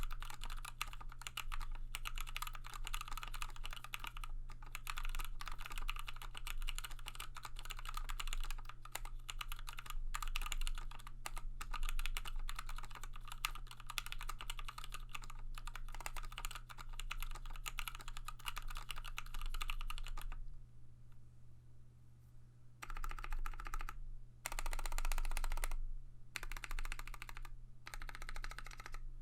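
Fast continuous typing on a Tofu65 aluminum-case mechanical keyboard with lubed Milky Gateron Yellow linear switches and PBT keycaps. The keystrokes run densely for about twenty seconds, stop briefly, then return in four short bursts. A steady low hum sits underneath.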